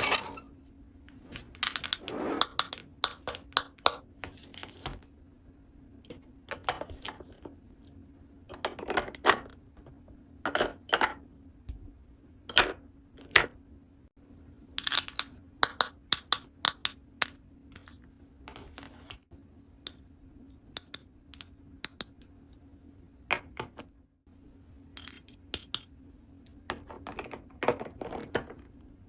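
Small plastic toy pieces clicking and tapping as they are handled, in irregular clusters of sharp clicks with short pauses between, over a faint steady hum.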